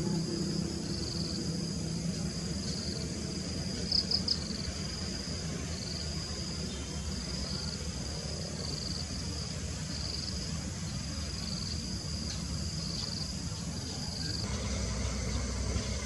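Insects chirring in repeated high-pitched trills over a low background rumble, with three louder notes about four seconds in. Near the end the background changes to a louder, steady hiss and rumble.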